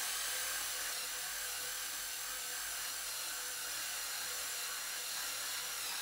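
Ryobi cordless drill running steadily, driving a 2-1/8 inch bi-metal hole saw through a wooden door. It is finishing the lockset bore from the second side of the door.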